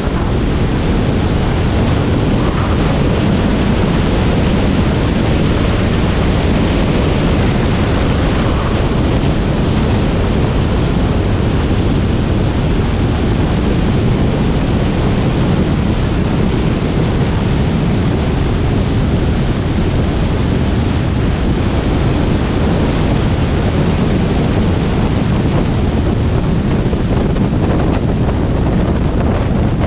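Steady wind rush across the microphone of a camera mounted outside on a moving Honda S2000, with tyre and road noise underneath.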